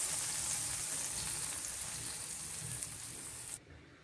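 Hot ghee with fried almonds and cloves sizzling after being poured into a pan of milk kheer: a steady hiss that slowly dies down and cuts off suddenly near the end.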